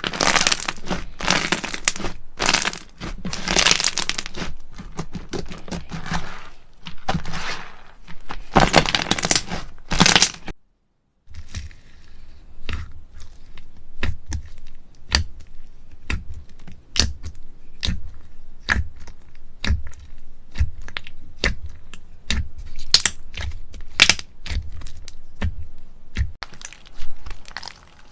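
Slime being squished and pressed by hand: dense crunchy crinkling for the first ten seconds, then, after a short cut, a run of sharp popping clicks, about two a second.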